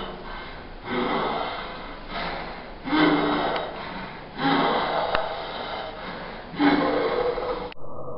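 A person gasping and heaving for breath, the strained breathing of someone suffocating: loud ragged surges every second or two, some with a short voiced catch. Near the end it cuts off abruptly to a duller, muffled sound.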